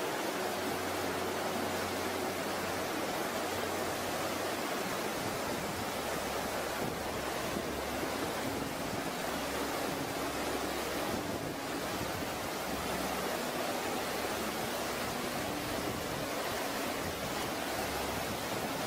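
Flash-flood water rushing in a steady, even roar, with a faint low hum underneath.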